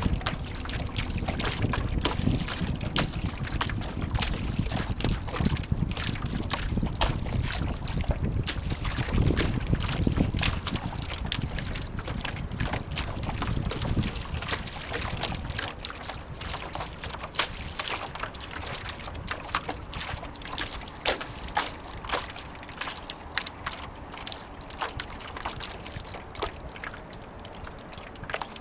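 Water slapping and splashing against the hull of a small sailboat under way, in many short irregular slaps. Wind buffets the microphone with a low rumble for about the first half, then eases off.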